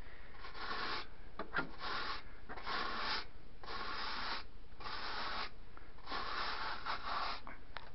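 A pet brush scrubbing a heat pump's evaporator coil: about six scratchy strokes, roughly one a second, dragging caked dust and grime off the dirty coil.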